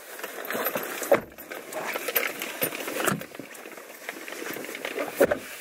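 Faint rustling and handling noises inside a car, with a few short knocks over a low hiss.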